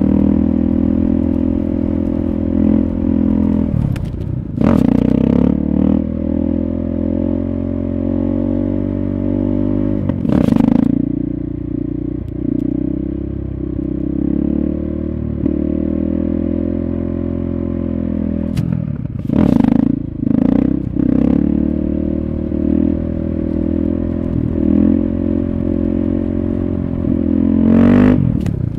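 KTM 640 Supermoto's single-cylinder four-stroke engine running hard at a fairly steady throttle, with small rises and dips in speed. Several short, sharp bursts of noise cut across it, twice in quick clusters.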